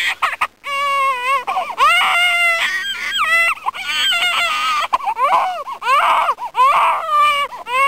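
Newborn baby crying: a run of wailing cries, one after another, each rising and falling in pitch, with a brief pause about half a second in.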